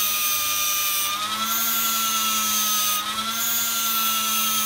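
High-speed rotary tool running with a steady high whine, its 1000-grit 3M abrasive bristle disc polishing copper pipe. The pitch dips slightly and recovers twice.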